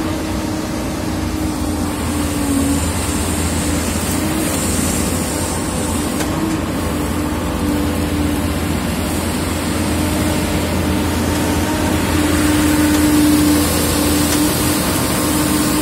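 Wheeled excavator's diesel engine running steadily under work, a low hum with a steady higher tone over it, a little louder near the end.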